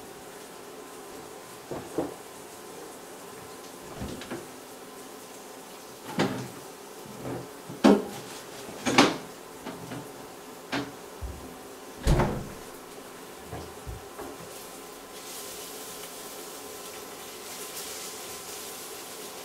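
Kitchen clatter: a series of about a dozen wooden knocks and clunks, the loudest a little past the middle. Near the end a faint brighter hiss comes in as the diced onion and merguez in the carbon-steel pan are stirred with a wooden spoon.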